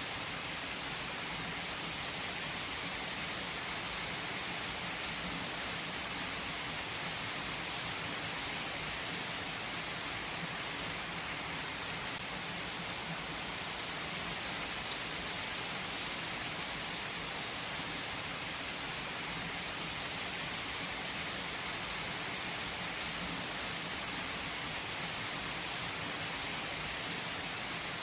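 Heavy rain falling steadily on tree foliage: an even, unbroken hiss with scattered drop ticks.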